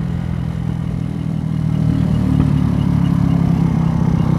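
Dongfang DF50SST scooter's four-stroke engine, big-bored to 88cc and breathing through a GY6 150cc carburettor, running at low throttle as the scooter slows from about 23 to 10 mph. A faint high ticking repeats about four times a second through the second half.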